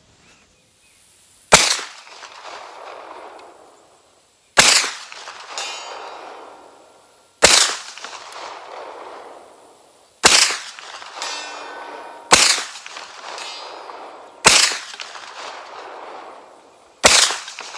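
Hi-Point 995TS 9mm carbine fired seven times at a slow, steady pace, a shot every two to three seconds, each report trailing off in a long echo.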